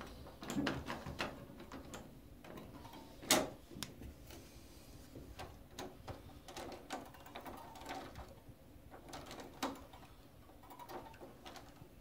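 A brass-finish door knob being turned and jiggled by hand, its latch mechanism clicking and rattling irregularly. The loudest sharp click comes a little over three seconds in, with another about three-quarters of the way through.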